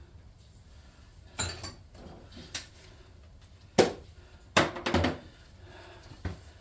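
Metal hand tools clinking and knocking as they are handled and set down on a workbench: about half a dozen separate sharp clinks, the loudest about four seconds in.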